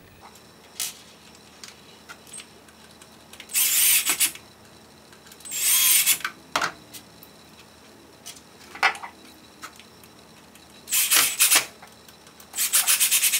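Cordless drill-driver with a Phillips bit driving in the four screws that hold the brace over a golf buggy's motor: four short whining bursts, each under a second, with light handling knocks between them. The last burst breaks into a fast pulsing rattle.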